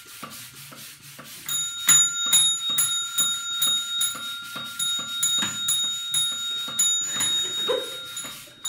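Desk service bell (tap bell) struck over and over, about three rings a second, each strike renewing a steady metallic ring. The ringing starts about a second and a half in and stops about seven seconds in.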